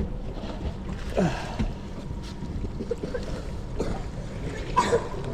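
Steady low rumble and wind noise aboard a small fishing boat, with a short falling vocal exclamation about a second in and brief voice sounds near the end.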